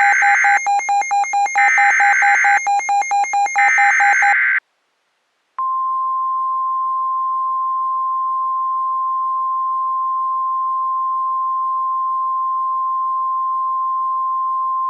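Emergency Alert System SAME header: harsh, warbling data bursts for about four and a half seconds. After a second's pause, the NOAA Weather Radio 1050 Hz warning alarm tone comes in as one steady, unbroken beep. Together they signal the start of a new warning, here a tornado warning.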